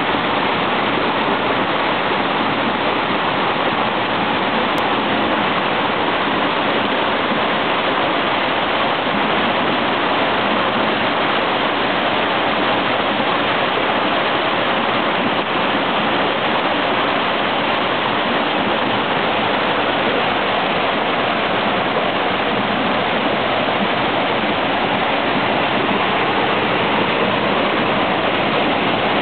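Water pouring from a wooden chute into a vâltoare, a traditional wooden whirlpool basin, and churning there in a loud, steady rush.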